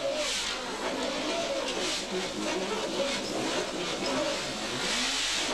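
Bunker loader working ore underground, its motor note rising and falling under load over a steady rushing hiss as the bucket digs into the muck pile and tips the ore into the machine's bunker.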